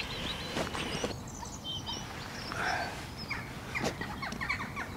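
Wild birds chirping in scattered short calls, with a few short knocks and a soft rustle from handling as a large carp is turned over on the ground.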